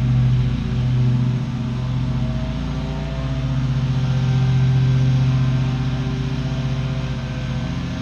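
Commercial lawn mower engine running steadily under mowing load, its level swelling and easing every second or two as the mower works across the lawn.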